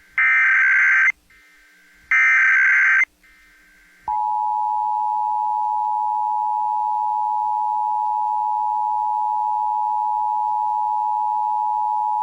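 Emergency Alert System SAME header: two one-second bursts of digital data tones about two seconds apart. About four seconds in comes the steady two-tone EAS attention signal, the sound that opens an emergency alert, here a national test.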